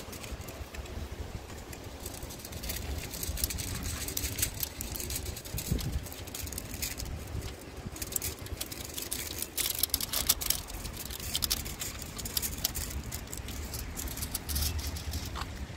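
Aluminium foil crinkling and crackling as hands crimp its edges and press it flat against a car hood, the crackles coming in irregular runs, busiest in the middle, over a steady low rumble.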